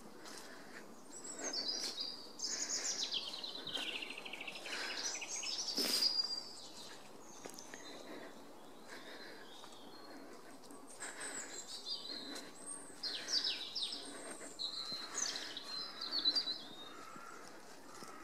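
Songbirds singing: two long runs of fast trilling and warbling song, about a second in and again about eleven seconds in, with footsteps shuffling through dry fallen leaves and a sharp click about six seconds in.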